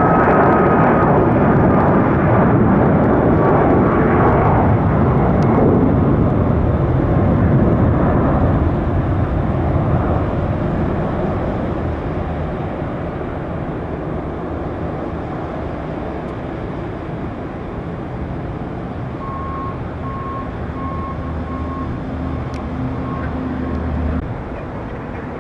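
Jet airliner passing loud, its engine whine falling slowly in pitch as the noise fades away. After that comes a quieter steady low hum, with a row of short beeps near the end.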